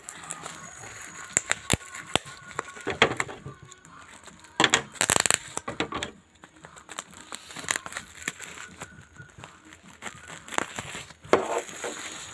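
Plastic bubble wrap crinkling and crackling as hands handle and peel open a bubble-wrapped parcel, with scattered sharp clicks and a louder rustling burst about five seconds in.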